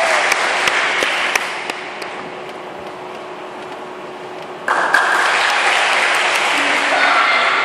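A group of children clapping in a steady rhythm, about three claps a second, dying away after about two seconds. About five seconds in comes a sudden burst of applause with cheering voices, echoing in a large hall.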